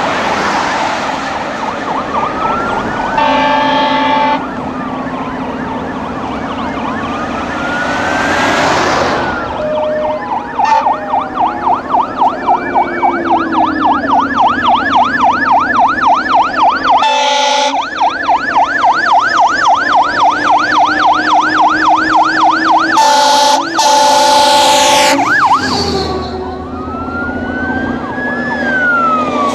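Fire truck sirens passing on a highway. A slow rising-and-falling wail switches about ten seconds in to a fast yelp, about three cycles a second, and returns to the wail near the end. Air horn blasts sound about three seconds in, once midway, and twice more before the wail returns, over the steady run of the trucks' engines.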